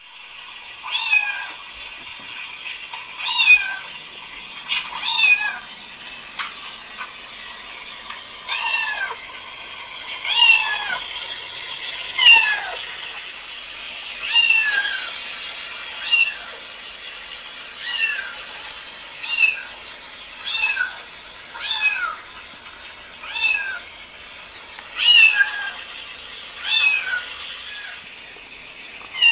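A recorded cat meow sound effect played from a laptop's speakers: short single meows repeated every one to two seconds, each falling in pitch.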